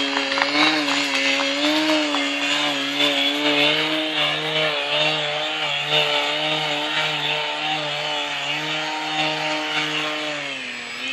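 RC model airplane's motor and propeller buzzing steadily as the plane hovers nose-up in a prop hang, the pitch wavering slightly with small throttle corrections. The pitch drops near the end as the throttle is eased.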